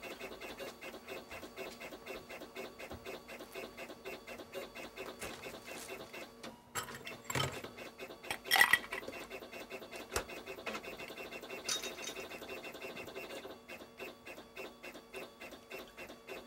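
Rapid, even mechanical ticking, like a small machine running, with a few louder knocks about halfway through.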